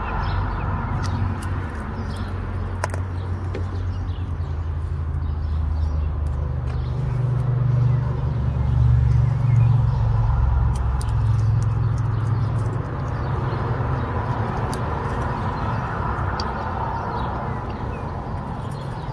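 A vehicle engine running steadily, its low hum shifting slightly in pitch and growing louder about halfway through before settling back.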